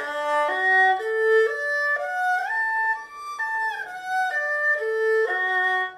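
Erhu played solo, a broken-chord arpeggio climbing step by step and coming back down, each note about half a second, slurred two notes to a bow. Two short slides in the middle mark shifts of hand position.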